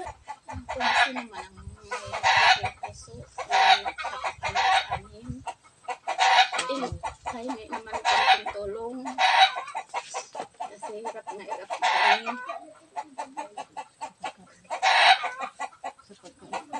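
Chickens calling in a run of loud clucks and cackles, one call every second or two, with a longer gap near the end.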